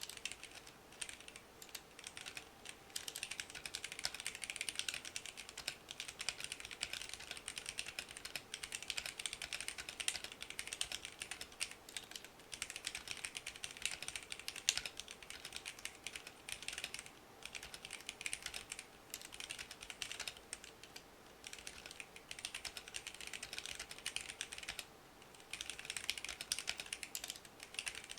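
Typing on a stock, out-of-the-box Womier K66 mechanical keyboard with Gateron Black linear switches, ABS keycaps and an acrylic case: a dense run of keystroke clacks with short breaks every few seconds.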